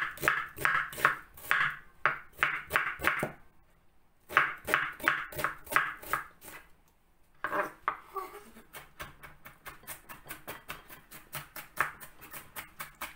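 Kitchen knife chopping food on a cutting board: fast, even strokes that stop twice briefly, then a quicker, lighter run of chopping in the second half.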